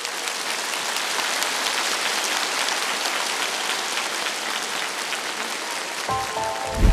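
Audience applauding, a dense even clatter of many hands. Music with steady notes and a thumping bass beat comes in near the end.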